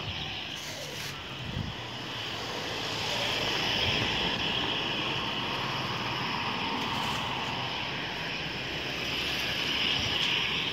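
Small motorcycles riding through a street intersection over a steady traffic hum, the engine noise swelling about four seconds in and again near the end as they pass.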